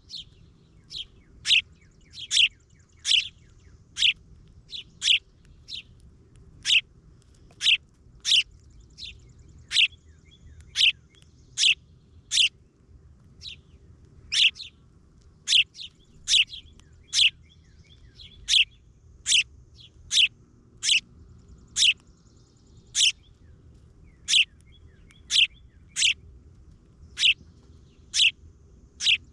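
A bird repeating sharp, downward-sweeping chirps, a little more than one a second, on and on.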